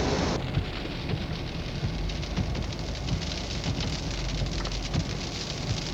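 Wind-driven snow pattering against the vehicle during a blizzard: a dense crackle of small ticks over a low, steady rumble.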